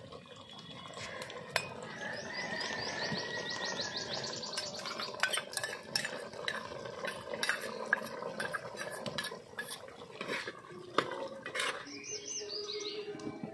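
A steel ladle stirring in a clay cooking pot of curry, with irregular clinks and knocks of metal on clay and on a small steel bowl as curry is ladled into it.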